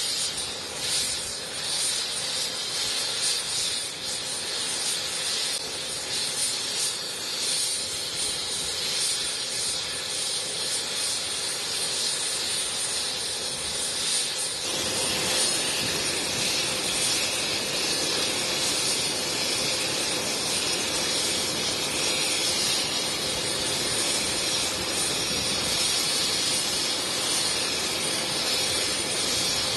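Helicopter turbine engine running on the ground, a steady rushing whine that gets louder and fuller about halfway through.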